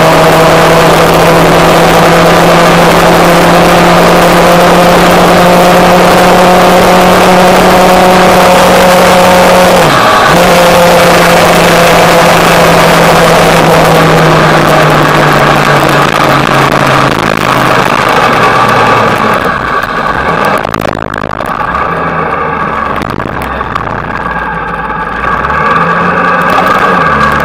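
Sport motorcycle engine running at steady road speed under a heavy rush of wind on the onboard camera's microphone; about ten seconds in the engine note dips sharply and recovers once. Past the middle the engine note falls away and the wind eases as the bike slows, then the engine picks up again near the end.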